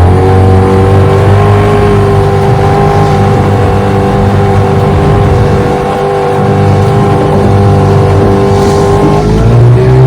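1996 Johnson 15 hp two-stroke outboard motor running under way. Its pitch climbs a little at the start, holds steady, then rises again near the end as the throttle is opened.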